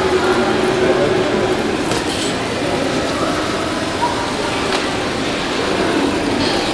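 Steady background murmur of many voices in a large hall, with a few light clinks.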